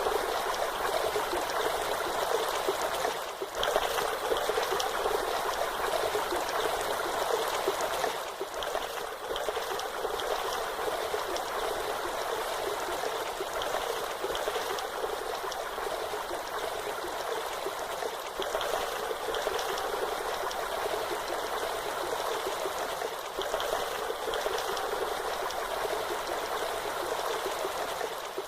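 Waterfall: water falling and splashing in a steady rush that does not let up.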